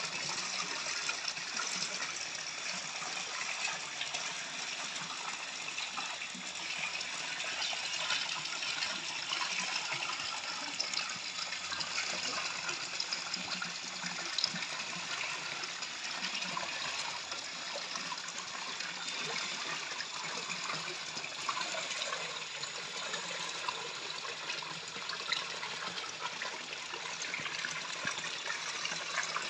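Spring water pouring steadily from several pipe spouts and splashing into the pool beneath them.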